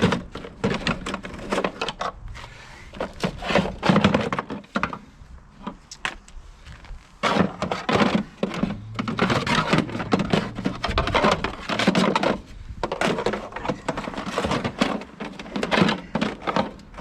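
Irregular knocks, clicks and rattles of bottles and tools being handled in and out of a plastic Milwaukee Packout tool box.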